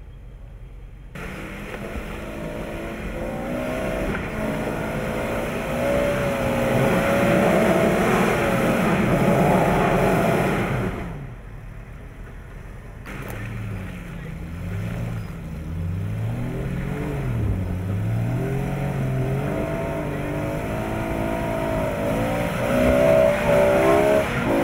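Four-wheel-drive vehicle engine revving up and down as it drives off-road. The sound drops away for about two seconds near the middle, then returns with revs swinging up and down.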